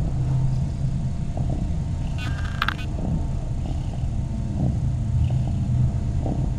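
Mother cat purring close to the microphone: a steady, low, pulsing rumble. A brief high squeak comes about two and a half seconds in.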